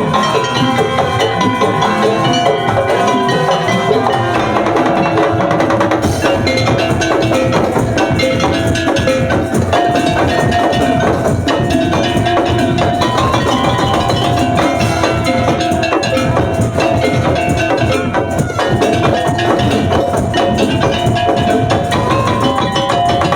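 Madurese tongtong (daul) percussion ensemble playing a busy rhythm of drums and wooden knocks, with tuned mallet percussion carrying a melody of held notes over it.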